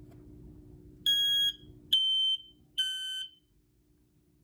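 Hardwired smoke alarm running on AC power, test-sounded: three piercing electronic beeps about half a second long and about a second apart, the third one quieter. It sounds without its full ramp-up in volume on AC power.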